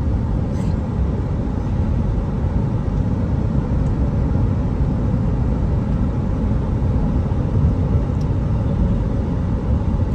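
Steady low rumble of road and engine noise from a car driving along, heard from inside the cabin.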